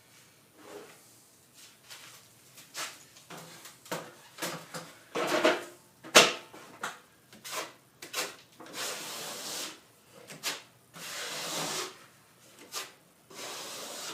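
Plasterer's trowel scraping and spreading a fresh coat of plaster over screw holes in a ceiling, with irregular clicks and knocks of the tool. A sharp knock about six seconds in is the loudest, and several longer scraping strokes come in the second half.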